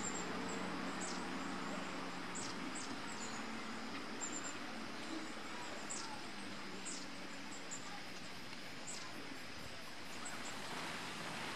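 Steady outdoor background rush with a low hum beneath it, and short high bird chirps every second or so, several of them quick downward slides.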